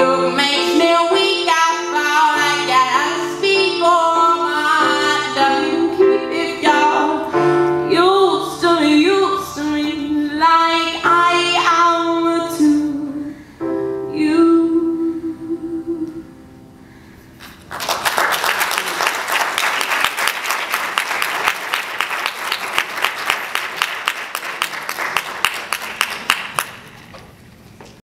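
A woman singing to her own piano accompaniment, the song closing on a long held note that dies away. About two seconds later an audience breaks into applause, which fades out near the end.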